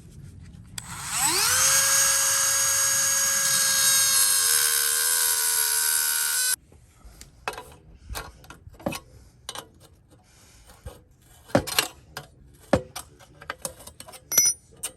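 A high-speed handheld power tool spins up with a rising whine, runs at a steady pitch for about five seconds, then cuts off abruptly. Scattered light clicks and knocks of metal parts being handled follow.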